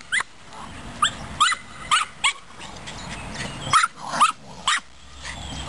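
A dog yapping: about eight short, high-pitched yips in two quick groups, with a pause of about a second in between.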